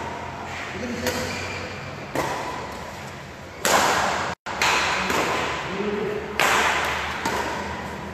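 Badminton rally: racket strings striking the shuttlecock about once a second, each hit sharp and echoing in a large hall, with two louder hits near the middle and about two-thirds of the way through.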